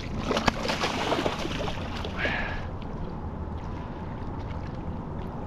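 Water splashing as a hooked snook thrashes at the surface beside the boat next to a landing net, busiest in the first two seconds, then settling to a quieter wash of water.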